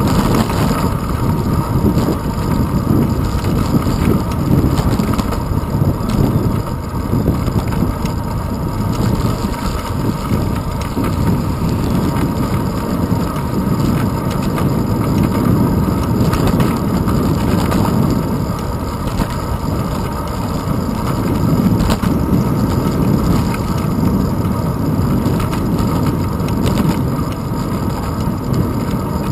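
Steady wind buffeting and road rumble from a moving bicycle, picked up by a handlebar-mounted action camera.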